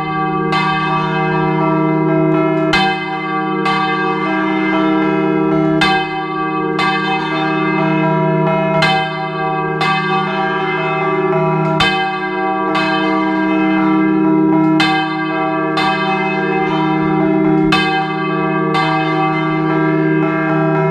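A large church bell of the Almudena Cathedral swung full circle in the Spanish volteo style. Its clapper strikes in pairs about a second apart, roughly every three seconds, over a continuous ringing hum.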